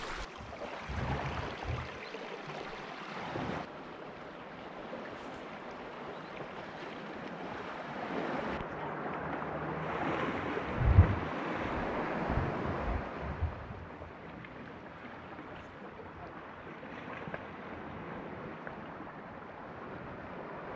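Small waves washing and lapping against a rocky shoreline, with wind buffeting the microphone. The wash swells for a few seconds about halfway through, with a few low thumps at its loudest.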